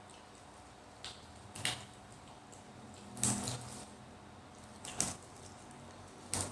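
A few short clicks and knocks, about a second or so apart, the loudest a little over three seconds in: eating noodle soup, utensils knocking against the bowl.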